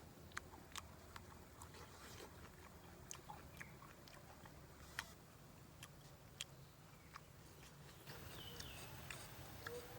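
A person chewing and biting food up close, with quiet, irregular crunches and mouth clicks.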